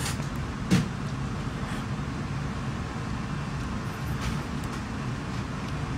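Steady low rumble of restaurant background noise, with one sharp knock a little under a second in.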